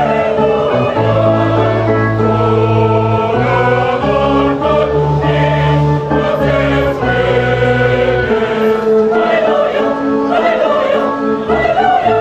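Choir singing gospel-style music with instrumental accompaniment, over held low notes that change every second or two.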